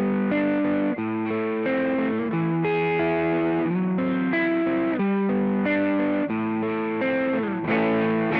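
Electric guitar played through a Joyo Vintage Overdrive, a Tube Screamer-style overdrive pedal, giving a warm overdriven tone. It plays a phrase of ringing notes and chords that change every half second or so, with a slide down in pitch near the end.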